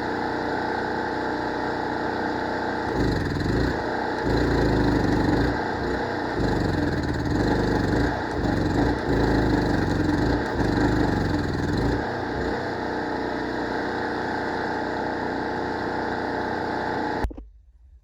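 A small gasoline generator engine runs steadily, then labours and eases in uneven surges from about three to twelve seconds in, as the welder draws on it. It cuts off sharply near the end.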